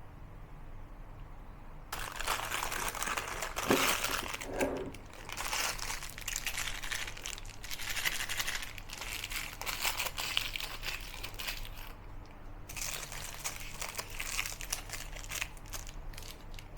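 Plastic piping bag crinkling and rustling as it is handled and filled with the coffee topping mixture, in two stretches with a short pause about twelve seconds in.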